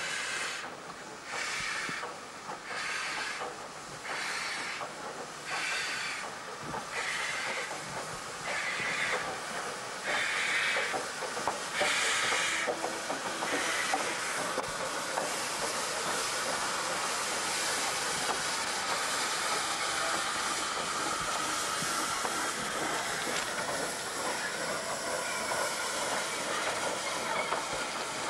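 South African GMAM Garratt steam locomotive under way, its exhaust beating about once a second and gradually quickening. About halfway through, the beats merge into a steady loud hiss of steam as it passes close.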